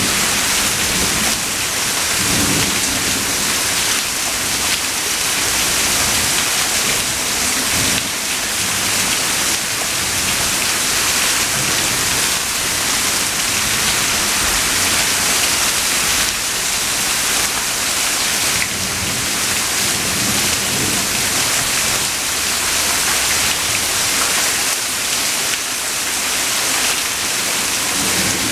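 Steady rain falling hard on surfaces, with low thunder rumbling under it at times.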